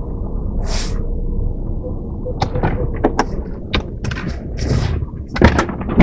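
Steady low engine and road rumble inside a car's cabin as it creeps into a parking space. A brief hiss comes about a second in, then from the middle onward a run of sharp clicks and knocks, with a loud thump near the end.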